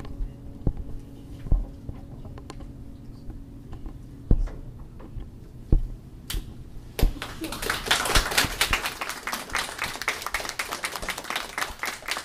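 A few scattered knocks and claps, then audience applause that starts about seven seconds in and keeps going.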